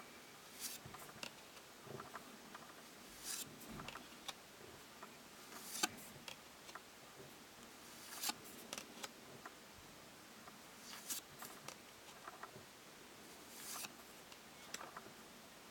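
Magic: The Gathering cards being flipped through one at a time, each card slid off the front of the stack by hand with a brief, faint swish, about every two and a half seconds.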